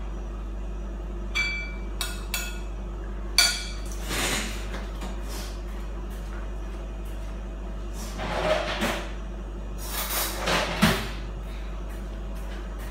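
Kitchen utensils and dishes being handled out of sight: a few sharp knocks and clinks in the first few seconds, then longer noisy stretches of handling around the middle and again near the end.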